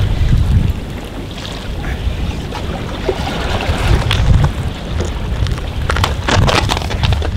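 Wind buffeting the microphone in uneven gusts, with the sea behind it; about six seconds in, a quick run of sharp clicks and crackles.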